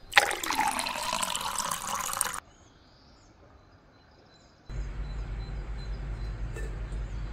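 Water poured in a stream into an empty stainless-steel mixing bowl, splashing loudly for about two seconds and then stopping. After a pause, a steady low hum comes in.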